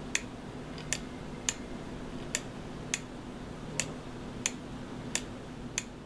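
A Rule bilge-pump float switch clicking sharply about nine times, roughly once every 0.7 seconds, as its rocker is tipped back and forth by hand. Each click is the spring-loaded pair of contacts snapping open or shut: the normal clicking noise of this switch.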